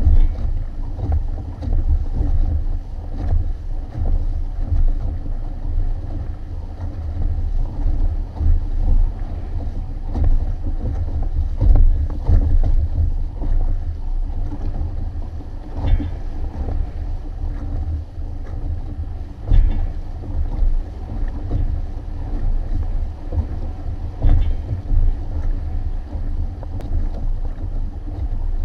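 Wind buffeting the microphone in a heavy, uneven rumble over the rush of water along the hulls of a Hobie Tandem Island sailing trimaran under way, with a sharper splash now and then.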